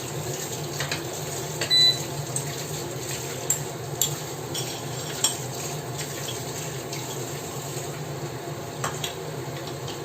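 A metal utensil clinking and scraping against a cooking pan as sautéed corned beef is stirred, in scattered knocks with one louder ringing clink about two seconds in, over a steady low hum.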